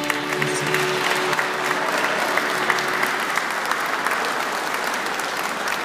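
Audience applauding with dense, steady clapping. The last held chord of the music fades out under it in the first second or so.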